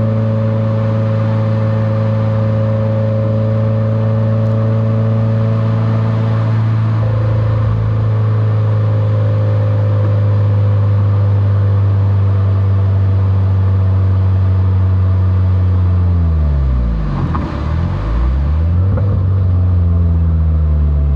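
2021 Subaru WRX's turbocharged 2.0-litre flat-four engine running at a steady cruise with a low drone. About sixteen seconds in, the revs dip and climb back twice, as on gear changes.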